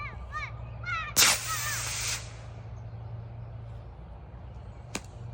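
Model rocket motor igniting about a second in and burning with a loud hiss for about a second, then a single sharp pop about five seconds in, the timing of the motor's ejection charge. Before ignition there are quick repeated chirps, with a steady low hum underneath throughout.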